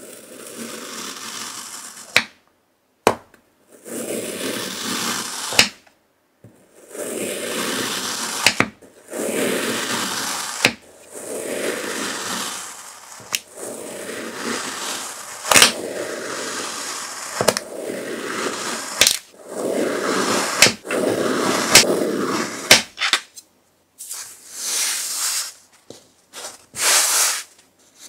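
A knife slicing again and again through a packed block of kinetic sand. Each stroke is a gritty scraping hiss lasting a second or two, with sharp clicks between the strokes. Near the end, a few shorter, hissier bursts of sand crumbling as it is pulled apart by hand.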